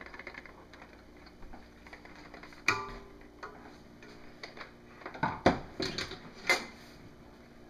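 A few sharp clinks and knocks of soapmaking utensils: one clink about two and a half seconds in that rings on for a second or so, then three more knocks between five and seven seconds in.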